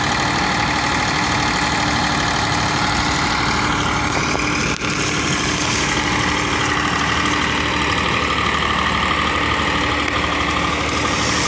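Farm tractor's diesel engine running steadily at idle.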